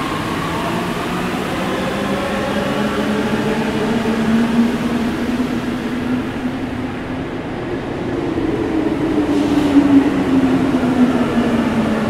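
Driverless, rubber-tyred Paris Métro Line 14 train pulling away after releasing its brakes: a steady running rumble under a motor whine that climbs slowly in pitch as it gathers speed, then drops near the end.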